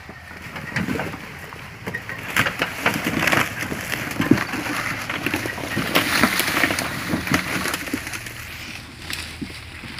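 Dry bamboo leaves, twigs and rocks crackling, snapping and crunching under the tyres of a modified Nissan Terrano 4x4 crawling slowly over rough ground, with branches scraping along its body. The noise builds after about a second and eases off near the end as the vehicle passes.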